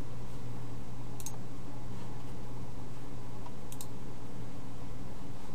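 Computer mouse clicks: a single click about a second in and a quick pair near four seconds, over a steady low hum and hiss from the recording setup.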